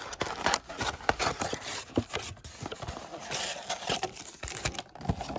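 Foil-wrapped trading card packs crinkling and knocking as they are slid out of a cardboard blaster box and handled, with irregular taps and rustles.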